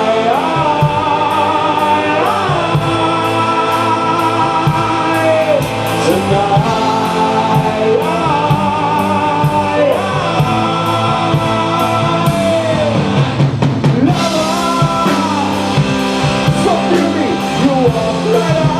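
Live rock band playing: guitars and a drum kit keeping a steady beat, with a lead voice holding long wavering notes without clear words.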